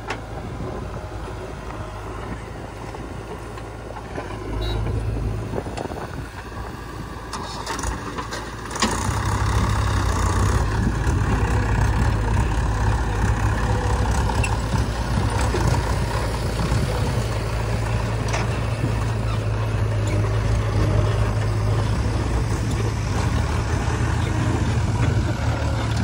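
Mahindra 475 DI tractor's diesel engine running under load as it pulls a trolley heaped with mud. The engine sound gets louder about nine seconds in and then stays steady.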